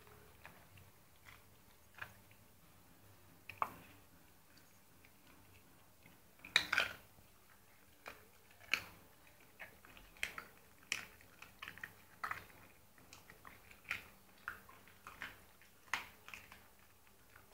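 A dog chewing and biting chicken, with irregular sharp chomps and clicks of its teeth about a second apart. The loudest bites come about a third of the way in.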